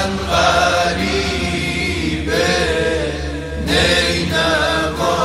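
Men's tawashih ensemble singing an unaccompanied devotional chant: a lead voice holds long, bending phrases over a steady low drone from the group.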